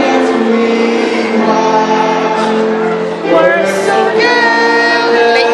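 Music with singing, the voices holding long notes that step from one pitch to the next.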